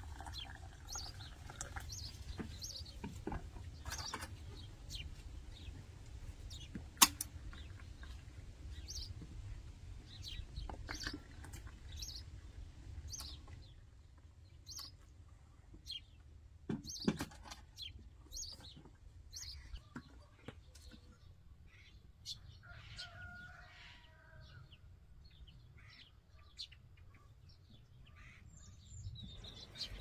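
Small birds chirping in short high calls over a low steady background, with a single sharp clink of porcelain teaware about seven seconds in and a few knocks of cups and teapot a little past halfway.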